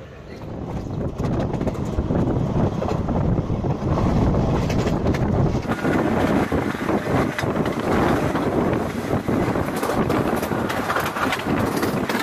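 Passenger train running along the track, heard from on board: a loud, dense rumble and rattle with many short knocks, with wind buffeting the microphone. It builds up over the first couple of seconds, then holds.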